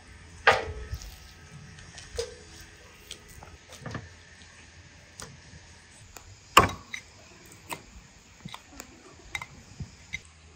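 Knife knocking on a wooden cutting board as raw meat is cut up, with two sharp, loud strikes about half a second in and six and a half seconds in, among lighter irregular taps and clicks, some from a spoon stirring in a glass bowl.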